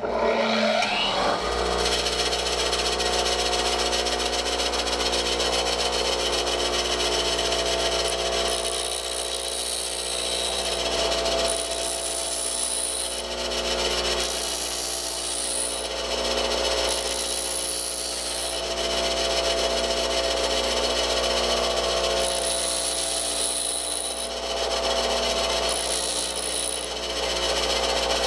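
A bench grinder switches on and spins up with a rising whine, then runs with a steady hum. Starting about eight seconds in, a hole saw's pilot drill bit is pressed against the grinding wheel in several short passes, each a high grinding hiss, sharpening a point worn down by heavy use.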